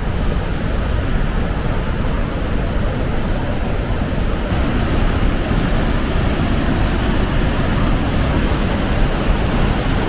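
Loud, steady roar of the Iguazu Falls close up: a dense rush of heavy falling water.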